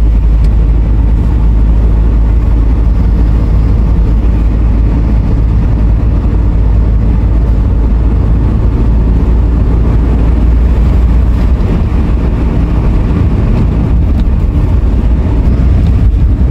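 Car driving at speed on an open road: steady engine and tyre rumble, heavy in the low end.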